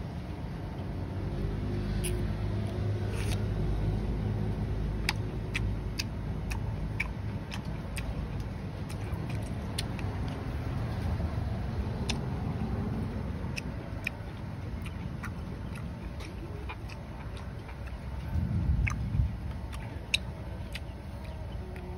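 Low rumble of a motor vehicle running, strongest in the first few seconds and swelling again near the end. Over it come many sharp wet clicks and smacks of someone eating grilled octopus dipped in sauce.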